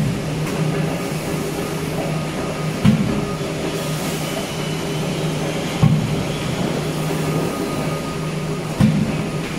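Power press on an aluminium circle blanking line stamping cooking-pot circles out of aluminium strip: a sharp thud about every three seconds, four strokes in all, over the steady low hum of the running machine.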